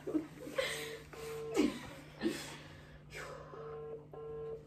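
Phone ringback tone over a speakerphone: a double ring of two short beeps, repeated about every three seconds, while the called number rings unanswered. Stifled giggles and breathy snorts come between the rings.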